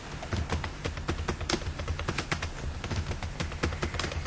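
Typing on a computer keyboard: a quick, irregular run of keystrokes as a password is entered and then re-entered. A low steady hum runs underneath.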